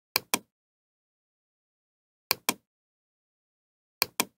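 Computer mouse clicking: three quick double clicks, one near the start, one a little after two seconds and one near the end.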